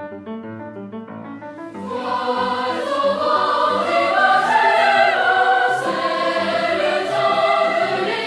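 Background music with choral singing; about two seconds in it swells into a louder, fuller passage.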